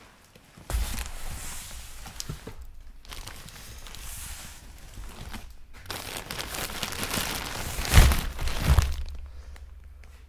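Rustling and crinkling as a box of sports cards and its packaging are handled, in three stretches, with two bumps near the end.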